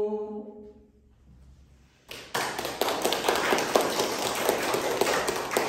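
The last held note of an unaccompanied women's folk song fades away, followed by a moment of quiet. About two seconds in, audience applause breaks out and goes on steadily, made of many overlapping hand claps.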